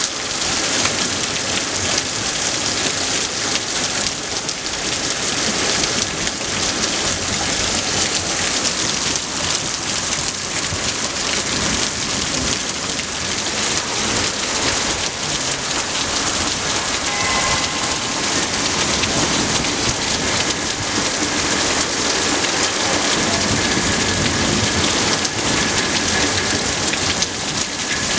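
Heavy rain pouring down steadily, a dense even hiss of rain hitting the ground and surfaces.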